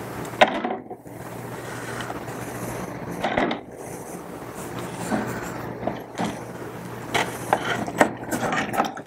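Iron parts of a vintage Sargent No. 400 series hand plane clinking and knocking as they are handled and lowered into a tall container of rust-remover soak. There is a sharp knock about half a second in and a run of clicks near the end, over a low steady hum.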